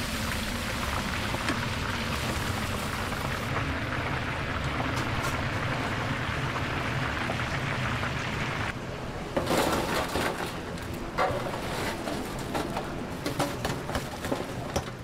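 Battered baby crabs deep-frying in hot oil: a steady dense sizzle. About nine seconds in it gives way to irregular crackling and rustling as the crisp fried crabs are tipped and moved about in a metal tray.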